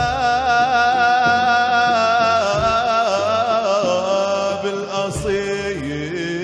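A male voice sings an Arabic religious song (inshad), holding a long ornamented note with vibrato. The note slides down about four seconds in, and lower phrases follow, over a low sustained accompaniment.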